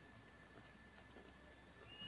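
Near silence, with a faint thin steady high tone.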